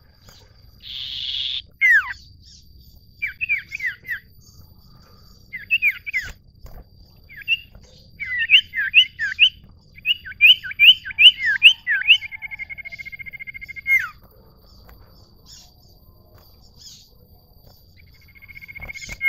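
Common ioras calling: groups of quick, down-slurred whistled notes, with a short harsh rasping note about a second in and a buzzy rattling trill lasting about two seconds around the middle. It goes quieter for a few seconds near the end before another rattle starts.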